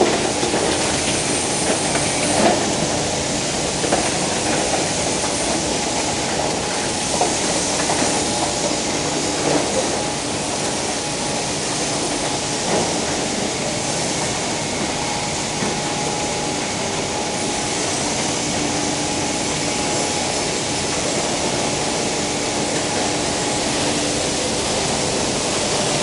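Machinery of a plastic film washing and recycling line running: a steady mix of mechanical noise with a couple of faint steady hums.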